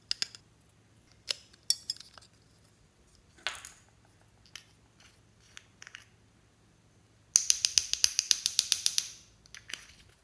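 Small plastic items handled with scattered clicks, then a small plastic jar tapped rapidly, about eight taps a second for roughly two seconds, shaking yellow pigment powder out of it.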